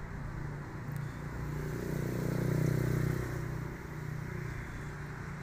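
A car engine running at low speed, a steady low hum that swells louder in the middle and then eases back.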